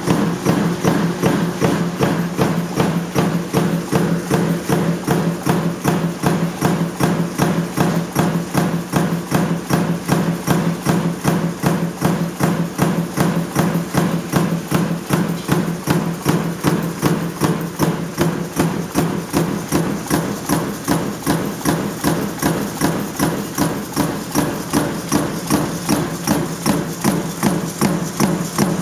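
Coil-fed mechanical punch press stamping strip in a progressive die, running continuously at about two strokes a second, each stroke a sharp metallic thud over the steady hum of the press motor and flywheel.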